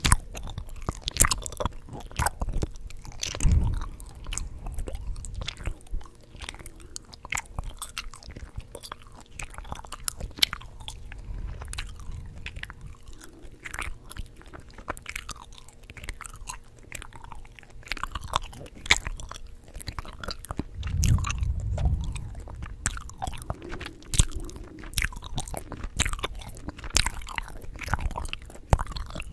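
Chewing gum close to the microphone: a dense, irregular run of wet smacks and clicks, with a couple of low thumps, one a few seconds in and a longer stretch about two-thirds of the way through.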